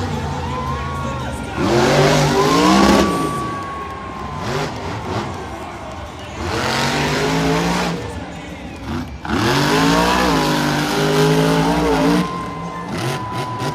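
Recorded race-car sound effects from a toy monster truck's sound module: an engine revving in three bursts, with tyre squeals in between.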